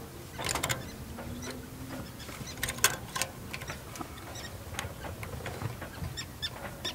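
Irregular light clicks and taps from a sailboat's stainless turnbuckle on the lower shroud being turned by hand to tension the rig. A few louder clicks come about half a second in and around three seconds in.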